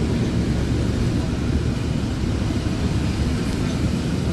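Steady low rumble of a 2020 Nova Bus LFS hybrid city bus, heard from inside the passenger cabin.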